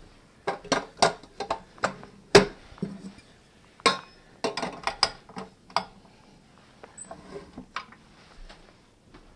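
Stainless steel mixing bowl and flat beater clanking and clicking as they are fitted onto a stand mixer: a quick run of sharp metal knocks, the loudest about two and a half seconds in, then a few lighter clicks.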